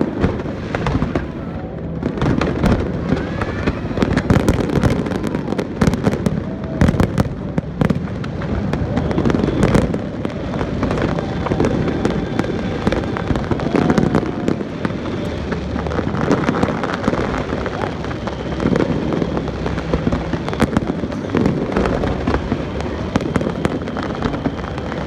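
Aerial fireworks display going off: a dense, unbroken series of sharp bangs, several a second, with louder reports standing out now and then.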